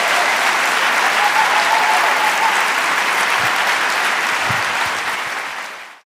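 Large audience clapping steadily, stopping suddenly near the end.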